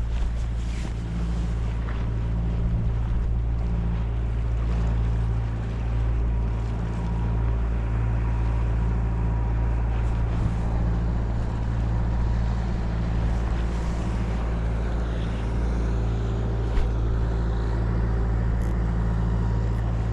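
A steady low engine hum, even and unbroken, with a few faint clicks.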